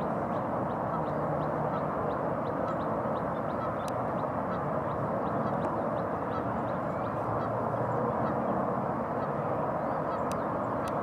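Steady, dense chorus of a flock of ducks and geese calling together, quacks and honks blending into one continuous babble.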